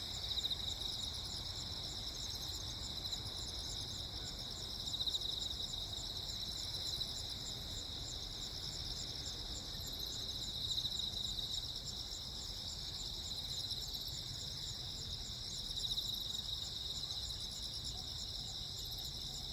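Crickets chirping in a steady chorus, several insects overlapping at different pitches with fast pulsing trills that swell a little every few seconds.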